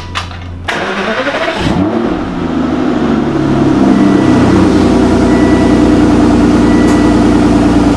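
Aston Martin engine being started: after a short low hum the starter cranks for about a second, the engine catches about two seconds in with a brief rev, then settles into a steady idle.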